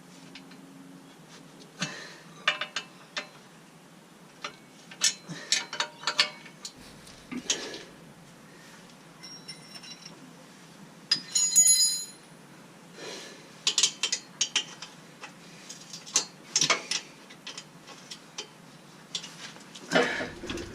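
Ratchet wrench clicking in irregular spells with metal taps while the exhaust flange bolts under the dump pipe are undone. A louder clink that rings briefly comes about eleven seconds in.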